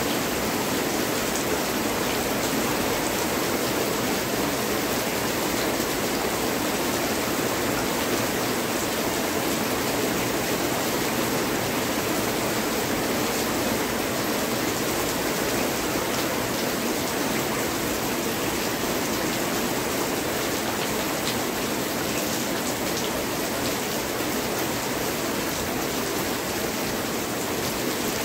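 Heavy rain falling steadily: a dense, even hiss that holds at the same strength throughout.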